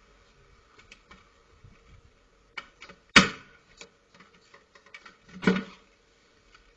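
A uPVC casement window being forced with a hand pry tool: small clicks and scrapes of metal on the frame, a sharp crack about three seconds in as the sash gives, and a duller bang about two seconds later.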